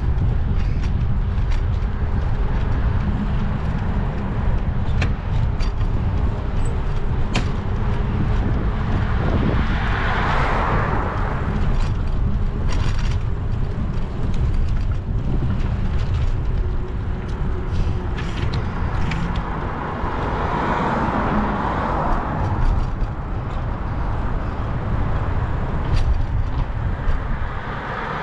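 Street traffic heard from a moving bicycle: a steady low wind rumble on the microphone, with vehicles swelling past about ten seconds in, about twenty seconds in, and again at the end.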